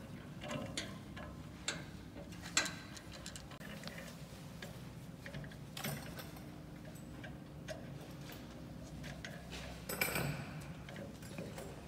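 Scattered knocks and clicks of square wooden blanks and metal fittings being handled while blanks are loaded into an auto-feeding CNC wood lathe, over a low steady hum. The sharpest knocks come about two and a half seconds in and near the end.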